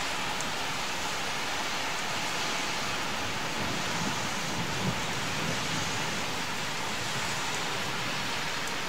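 Steady rain during a thunderstorm, with a low rumble of thunder swelling around the middle.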